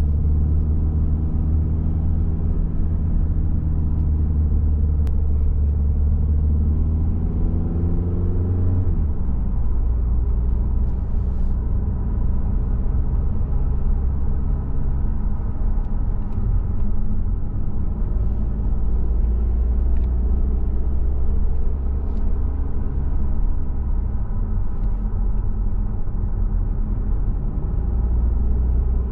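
Car engine and road noise while driving, a steady low rumble. The engine revs climb for a few seconds and drop sharply about nine seconds in, as at a gear change, then settle to a steady cruise.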